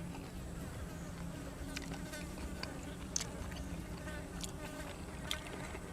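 Close-miked chewing of grilled cuttlefish and fresh vegetables, with a few crisp crunches standing out, over a steady low buzz.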